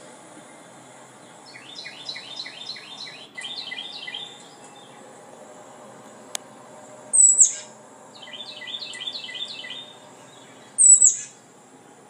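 Recorded birdsong playing from a TV's speakers: two phrases of quick repeated chirping notes, each followed a few seconds later by a short, loud, high-pitched call that drops in pitch.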